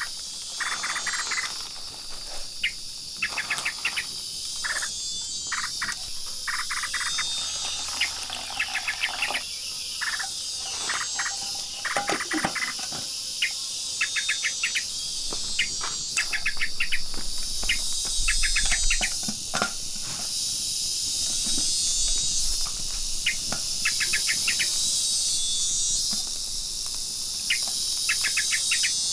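Steady, high-pitched insect chorus, with frequent short bursts of chirps or ticks over it.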